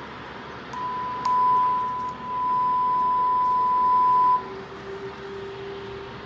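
Drowsy-driving alarm buzzer sounding one steady, high-pitched electronic beep for about three and a half seconds, with a click about a second in; the warning that drowsiness has been detected. A fainter, lower tone follows over a steady background hiss.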